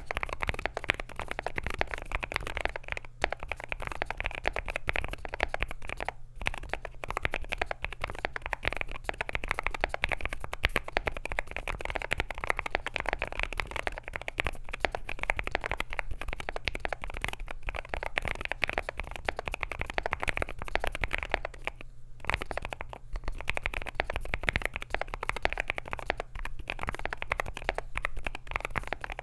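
Fast, continuous typing on an AKKO JIN01 aluminium-case, gasket-mount mechanical keyboard with lubed Akko Rosewood linear switches, an FR4 plate, foam-filled case and PBT Cherry-profile keycaps: a dense, muted clatter of keystrokes. The typing breaks off for a moment about 3 s, 6 s and 22 s in.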